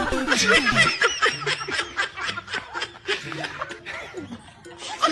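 A person laughing in quick, repeated snickers that fade near the end.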